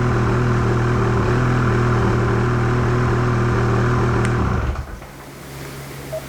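BRP E-TEC two-stroke snowmobile engine running steadily at cruising revs, enough for its 12-volt outlet to charge. About four and a half seconds in, the engine sound falls away sharply to a much quieter, lower hum.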